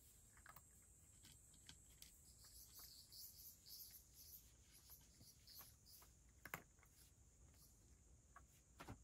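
Faint, irregular clicks and crunches of a cat eating from a shallow dish, with a sharper click about six and a half seconds in and another near the end, over a steady faint high-pitched whine.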